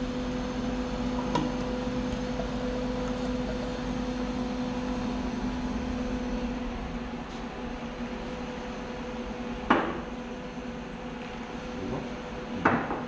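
Air-cooled SNOW COOK snowflake ice machine running with a steady hum as its freezing drum shaves ice flakes, the hum dropping about halfway through. Two sharp knocks come in the second half, as the lid is lifted and bottles are handled.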